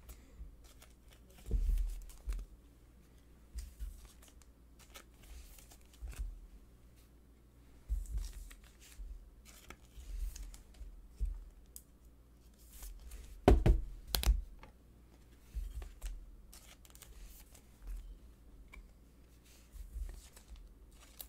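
Prizm trading cards being handled at a table: cards slid into plastic sleeves and set down, with scattered short rustles, clicks and light thumps. The loudest handling comes about thirteen to fourteen seconds in.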